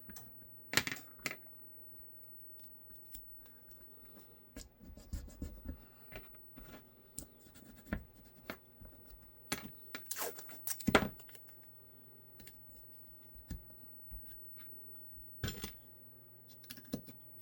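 Tape being pulled from a roll and pressed down by hand while blocking is fixed onto a holster mold: scattered scratches, crinkles and small clicks and knocks, with a few louder knocks about a second in, around ten to eleven seconds in, and near the end.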